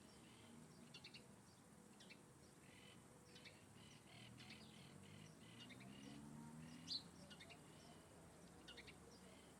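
Small birds chirping faintly: many short, high calls repeated throughout, with one louder call about seven seconds in.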